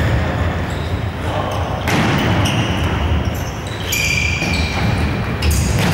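Futsal game on a wooden sports-hall floor: ball kicks and players' footsteps echoing in the hall, with a few sharp knocks, and players' voices calling.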